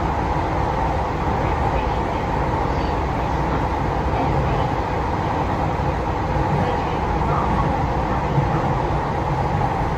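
Steady running noise of a Tokyu 3020 series electric train heard from inside the passenger car: an even rumble from the wheels on the rails.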